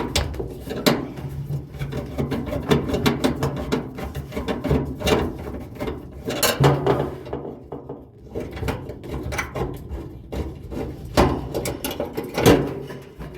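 Irregular clicks, clanks and knocks of hand tools and metal parts being handled on a dryer's idler pulley assembly.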